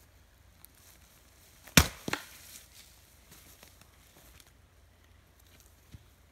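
A single heavy strike of an axe into a firewood round, a sharp woody chop, followed a fraction of a second later by a second, quieter knock.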